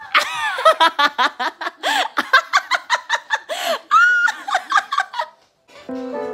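A woman laughing hard in quick, repeated bursts for about five seconds. Music starts near the end.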